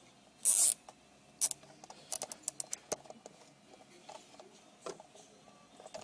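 Nylon zip tie being pulled tight through its ratchet: a quick zip about half a second in, a shorter one a second later, then a rapid run of clicks as it is cinched down.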